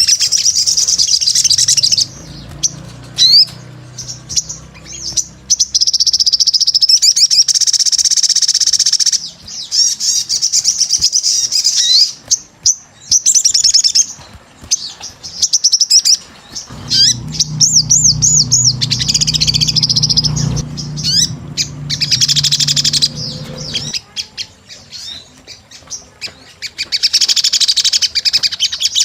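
Sogon sunbird singing: loud, high-pitched, fast warbling and trilling phrases of a few seconds each, separated by short pauses. A low hum sits underneath at the start and again for several seconds past the middle.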